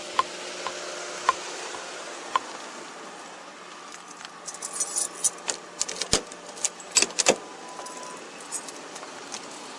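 Keys and duty gear jangling and clicking on a walking officer's body camera, thickening into a run of clacks. About seven seconds in come a couple of heavier clunks as the patrol car's door is opened, followed by a short steady tone.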